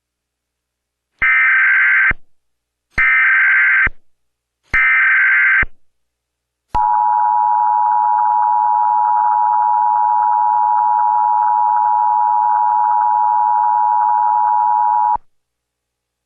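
Emergency Alert System test signal: three short bursts of buzzing SAME header data tones, each just under a second long, then the EAS attention signal, two steady tones sounded together for about eight and a half seconds and cut off abruptly.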